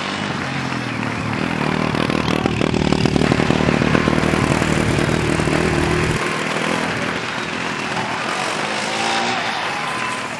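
Formula Student race car's engine running as the car corners around a skid pad. It is loudest a few seconds in, and the engine pitch swings up and down near the end.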